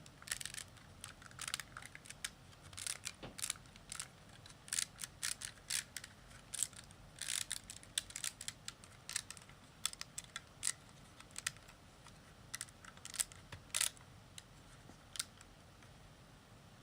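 Plastic Lego bricks clicking and clacking as pieces are handled and pressed together, in many short irregular clicks that thin out near the end.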